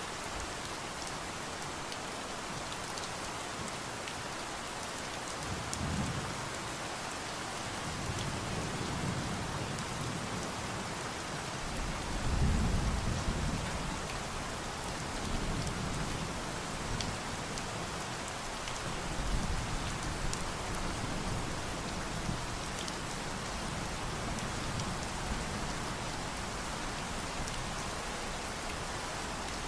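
Steady rain falling as an even hiss, with low rolls of thunder rumbling several times, the loudest about halfway through.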